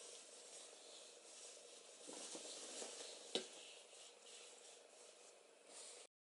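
Faint rustling and soft wet handling as cotton fabric is pushed down into a plastic bucket of dye bath, with one sharp click about three and a half seconds in. The sound cuts off suddenly near the end.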